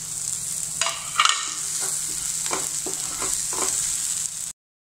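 Chopped tomatoes and fried onion masala sizzling in a nonstick frying pan while a wooden spatula stirs and scrapes through them. A series of short scraping strokes starts about a second in over the steady sizzle, and the sound cuts off suddenly near the end.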